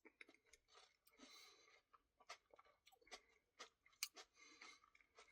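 Very quiet chewing of ice cream with cookie pieces: faint wet mouth clicks and small crunches, scattered irregularly.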